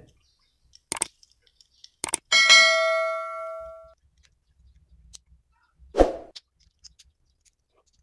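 Two clicks and then a bell ding from a subscribe-button animation's sound effect; the ding rings out for about a second and a half. Later there is faint scraping and a single knock as a screwdriver pries at the plastic casing of a fridge compressor's overload protector.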